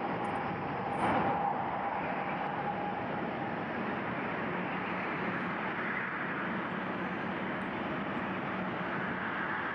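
Steady roar of jet airliner engines, with a faint high whine that fades out after about three seconds.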